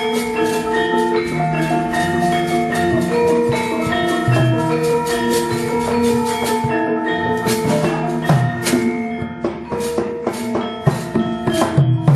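Javanese gamelan music: struck bronze metallophones ringing in overlapping sustained notes over hand-drum strokes. The strokes become sharper and more spaced out in the second half.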